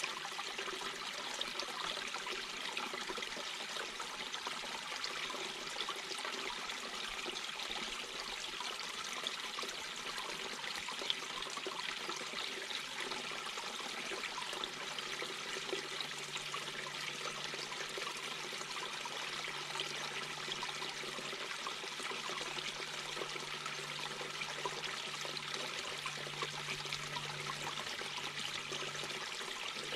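Mountain brook babbling: a steady, unbroken rush and trickle of running water.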